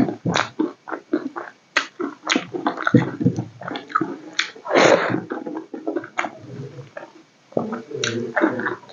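Close-up eating sounds: wet chewing, lip-smacking and mouth clicks from a person eating rice and besan-battered fried vegetables by hand. One longer, louder smacking crunch comes about halfway through.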